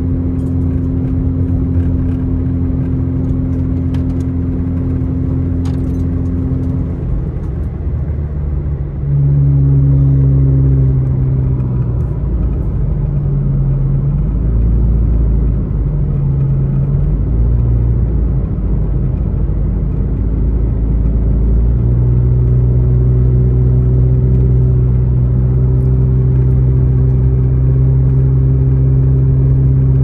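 Car engine and tyre noise heard from inside the cabin while climbing a mountain highway: a steady drone whose engine note shifts and gets louder about nine seconds in, then settles into a steady higher hum a little past the two-thirds mark.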